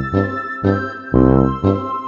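Background music played on an organ-like keyboard, with pitched chords struck in a steady rhythm about twice a second.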